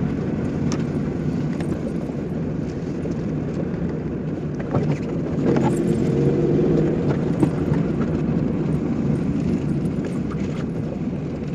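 Car engine and tyre noise from inside the cabin while driving steadily along a narrow paved road, an even low rumble with a few faint ticks.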